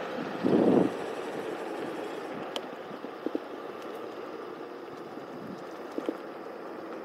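Electric scooter riding on an asphalt path, heard as a steady rush of wind on the microphone and tyre noise. There is a louder rush about half a second in and a few short knocks later.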